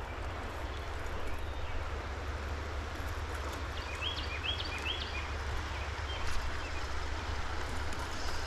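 Steady rush of flowing stream water over a low rumble. About four seconds in, a bird gives three quick chirps in a row.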